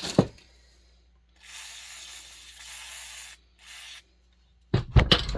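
A sharp knock, then two bursts of spray hiss, one lasting about two seconds and a shorter one right after, followed by a clatter of knocks near the end.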